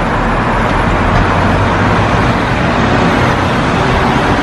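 Steady noise of road traffic, an even wash of sound with no single vehicle or event standing out.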